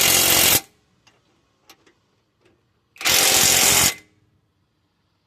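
Impact wrench running bolts down in two short bursts, the first about half a second long and the second nearly a second, with light clicks of tool handling between.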